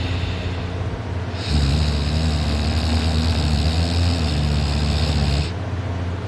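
A person snoring loudly in sleep: a quieter noisy breath, then one louder pitched snore of about four seconds starting about a second and a half in, dropping back to a quieter breath near the end.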